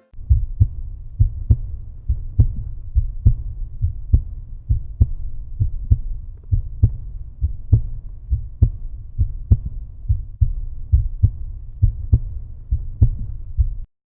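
Outro music: a steady, bass-heavy beat that repeats evenly and cuts off suddenly near the end.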